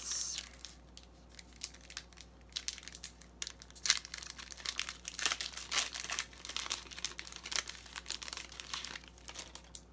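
Foil wrapper of a Pokémon trading-card booster pack being opened and crinkled by hand: irregular sharp crackles, the loudest about four seconds in.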